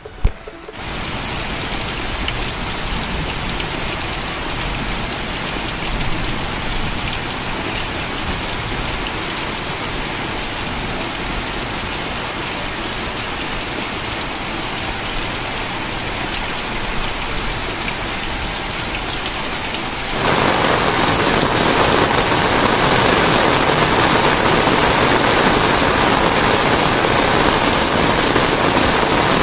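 Heavy monsoon rain falling steadily, turning louder about twenty seconds in.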